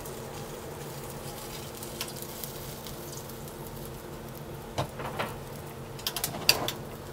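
Chicken jus (jus de volaille) simmering in a stainless saucepan on a gas burner, back at the boil after water was added: faint bubbling and spitting over a steady kitchen hum. A few sharper pops and clicks come in the last two seconds.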